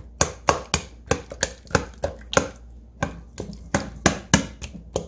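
A small knife repeatedly stabbing raw chicken thighs in a stainless steel bowl: sharp, quick taps about four a second, with a brief pause about halfway through.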